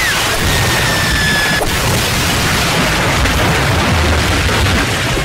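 Loud, steady cartoon rockslide sound effect of boulders tumbling down, pitch-shifted, with a faint high whistle early on and a sharp crack about a second and a half in.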